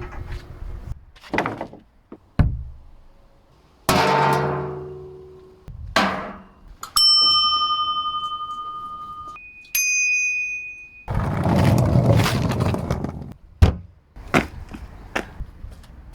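A string of different objects struck one after another to make noise: knocks and thunks, a hit that rings on with low tones about four seconds in, and two bright metallic ringing tones around seven and ten seconds in. Next comes a couple of seconds of rough noise, then several sharp knocks near the end.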